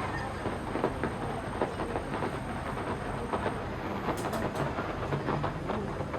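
Fireworks exploding and crackling: a dense, irregular stream of sharp pops and bangs over a constant rumble, with a few louder bangs standing out.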